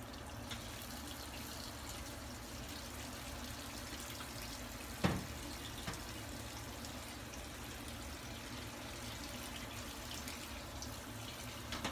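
Saucepan of instant noodles boiling on a gas burner: a steady bubbling hiss, with one sharp knock about five seconds in.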